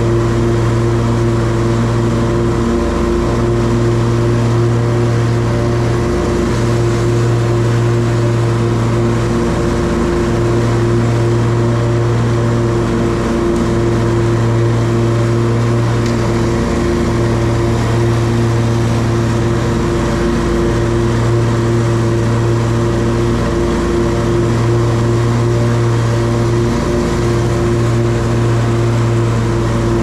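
Hustler Trimstar 52-inch walk-behind commercial mower running steadily while mowing, a loud engine drone with brief dips every few seconds.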